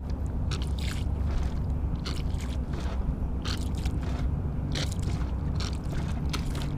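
A rubber primer bulb working as a hand bilge pump, squeezed again and again: irregular short rubbery sounds as bilge water is pushed up the clear hose, over a steady low hum.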